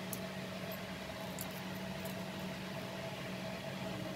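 A steady low hum with a fainter higher tone above it, as from a running appliance or electrical mains, with a few faint ticks in the first two seconds.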